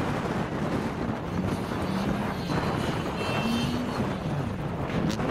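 Škoda Fabia rally car's engine revving up and down as it drives across wet grass, with wind buffeting the microphone.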